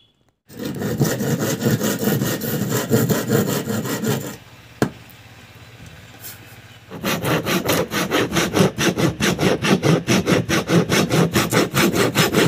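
Handsaw cutting through a wooden strip with fast, even strokes, starting about halfway through. Before that come a few seconds of similar scraping on wood, then a short lull with a single sharp knock.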